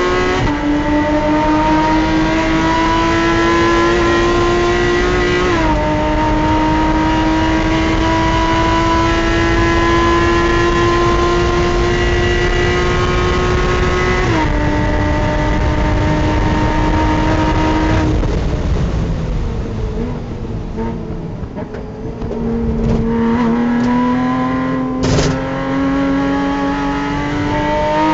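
Porsche Cayman race car's flat-six engine heard from inside the cockpit, revving up hard with two upshifts, about a fifth and halfway through. About two-thirds through, the throttle lifts for braking and the engine note falls away and quietens, then climbs again under acceleration. A brief knock comes near the end.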